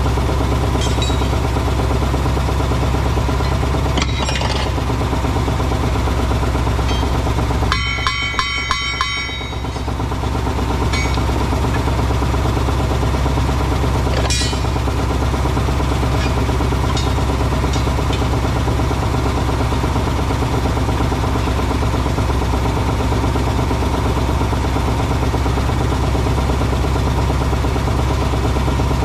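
Engine idling steadily, with a few sharp knocks and clinks from a forklift tire being handled, and a brief clatter about eight seconds in.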